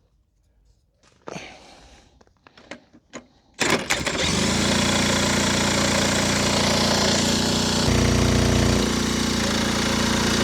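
Old moped's small engine running steadily after a start attempt, coming in about three and a half seconds in, with a brief change in tone around eight seconds.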